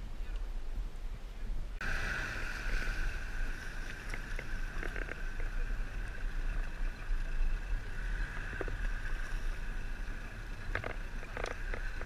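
Boat motor running steadily at speed over the water: a constant whine that cuts in about two seconds in, over a low rumble. A few sharp knocks near the end.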